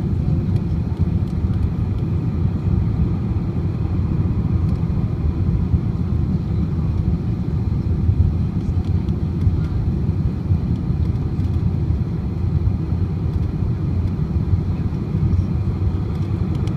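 Steady low rumble of engine and airflow noise inside a jet airliner's cabin on final approach.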